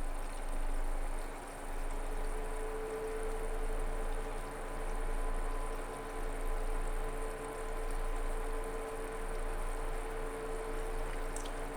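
Steady whir of desktop PC cooling fans, with a steady tone that comes in about two seconds in and holds.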